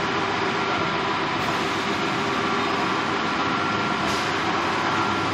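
Steady hum and whir of automated solar panel assembly line machinery, with a short hiss of compressed air venting about four seconds in.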